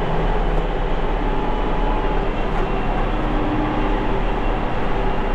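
Vehicle engine running steadily, heard from inside the cab: an even rumble with a constant low hum.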